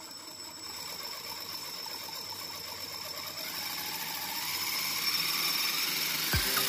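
Homemade 4×4 RC car's electric drive motor and gearbox running in reverse, turning the drive shafts with a gear whir and rattle. From about halfway, the whine rises in pitch and grows louder as the motor speeds up, with a short low thud near the end.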